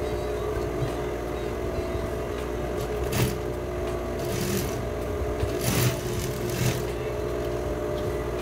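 Electric sewing machine running steadily, stitching a seam through cotton fabric, with a few short noisy bursts in the middle.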